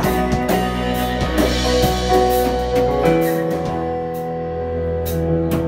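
Live rock band playing an instrumental passage with no vocals: electric guitar, acoustic guitar, electric bass, keyboard and drum kit, the drums keeping a steady beat under held guitar and keyboard notes.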